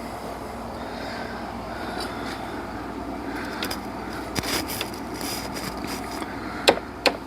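Sharp clicks and knocks of hands and tools working a serpentine belt over the engine's pulleys and tensioner, loudest near the end, over a steady low background hum.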